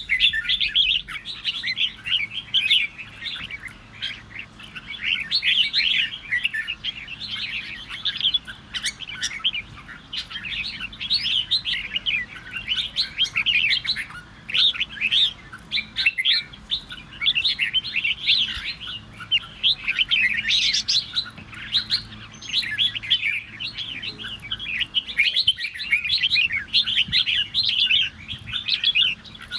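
Red-whiskered bulbul song: rapid, bright chirping phrases following one another almost without pause, the kind of bulbul song used to provoke other bulbuls into singing back.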